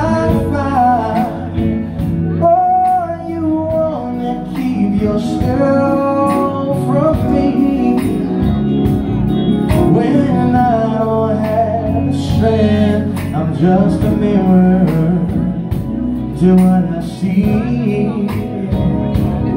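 Live band performing: male vocalists singing over electric guitar, drums and keyboard, with drum hits keeping a steady beat.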